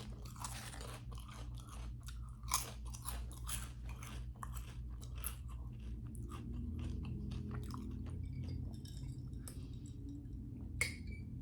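A person chewing a mouthful of a grinder sandwich with wet, crunchy, irregular bites. A single sharp click near the end.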